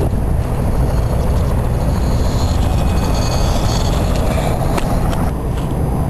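Wind rumbling steadily on the microphone, with a faint, wavering high whine in the middle and a couple of light clicks near the end.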